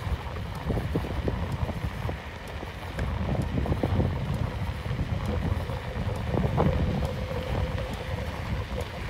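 Wind buffeting the microphone as a low rumble, with irregular light knocks and taps through it and a faint steady hum for a couple of seconds near the end.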